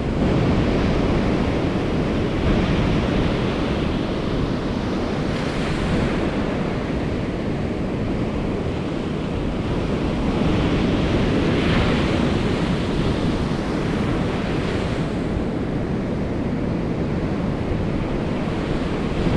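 Ocean surf breaking and washing up a sandy beach, a steady rushing with slight swells as waves break, mixed with low wind rumble buffeting the microphone.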